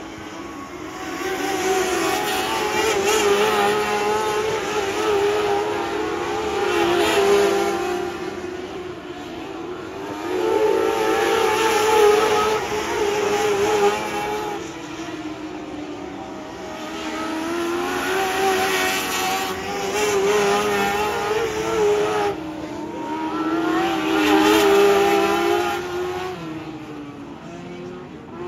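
Modlite race-car engines running at high revs on a dirt oval, the pitch rising and falling as the drivers lift and accelerate through the turns. The sound swells each time the field comes past and fades as it goes away down the track, about five times.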